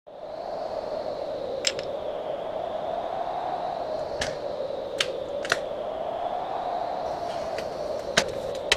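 Steady hum of background noise with a faint high whine, broken by about seven sharp, irregularly spaced clicks.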